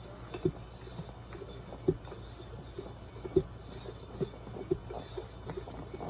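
Hand-operated bike pump being worked to inflate a mountain bike inner tube: a sharp knock at each stroke, about one every second and a half, with smaller knocks between.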